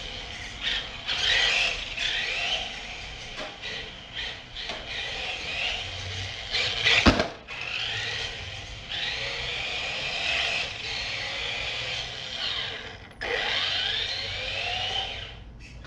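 LaTrax 1/18-scale rally car's electric motor whining in bursts as it speeds up and slows, with its tyres rubbing on a hardwood floor. There is one sharp knock about seven seconds in, and a rising whine near the end as it accelerates again.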